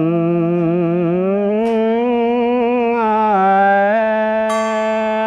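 Vietnamese Buddhist chanting in the slow hymn style of a sutra recitation: one voice draws a single syllable out over several seconds, sliding slowly up and down in pitch with a wavering vibrato over a steady low drone. A small metal bell is struck once near the end and rings on.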